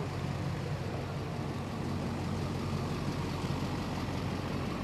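A vehicle engine idling steadily close by, a low, even hum.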